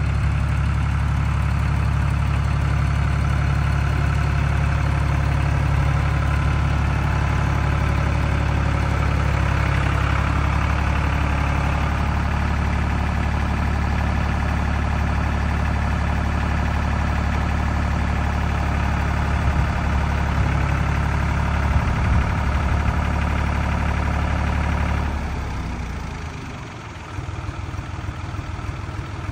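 John Deere 5300 tractor's three-cylinder diesel engine running steadily. About four seconds before the end its sound drops away and it settles into a quieter, steady run.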